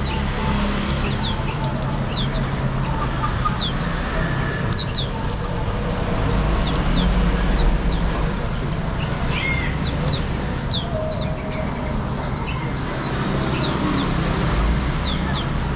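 Many small caged songbirds chirping: short, high-pitched calls, each dropping quickly in pitch, scattered throughout and overlapping, over a steady low rumble.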